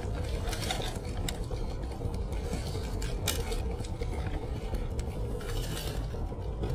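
Bites into a crispy fried chicken sandwich and chewing, with a few sharp crunches and its paper wrapper crinkling, over the steady low hum of a car cabin.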